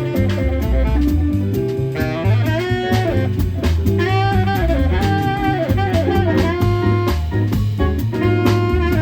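Live jazz quartet playing: a saxophone carries a melodic line over a bass line moving note by note, keyboard, and a drum kit keeping time on the cymbals.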